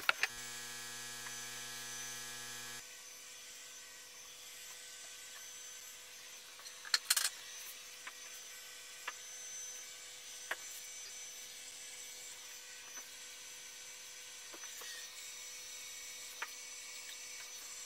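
A steady faint hum of workshop equipment, with a louder buzzing hum for about the first three seconds. Scattered sharp taps and a short clatter about seven seconds in come from tools and a container knocking against a wooden mold while epoxy is poured and spread with a metal trowel.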